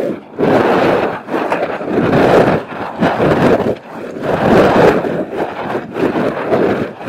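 Gusts of wind buffeting the microphone in irregular loud surges, each about a second long, with short lulls between them.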